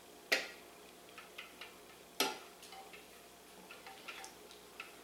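Wooden spoon knocking and scraping inside a tipped plastic food processor bowl while salsa verde is scraped out: two sharp knocks, about a third of a second in and about two seconds in, with light ticks between.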